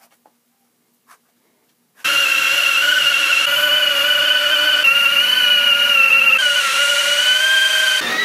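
A cordless drill with a Forstner bit boring holes in plywood: a loud, steady motor whine under load that starts suddenly about two seconds in and shifts slightly in pitch a few times. Before it there is near silence with a few faint clicks.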